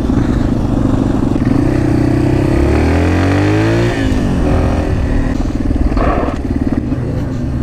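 Motorcycle engine running under way on gravel. Its pitch climbs as it accelerates for a second or so, drops sharply about four seconds in at a gear change, then settles back to a steady run.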